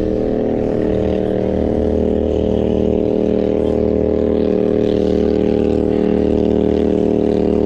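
Boat's outboard motor running at a steady speed, a constant even drone.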